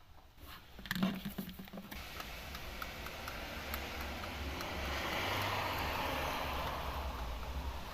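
Thunderstorm: a sharp crack of thunder about a second in, then a long rolling rumble that swells and fades, over the hiss of rain. Wind buffets the microphone.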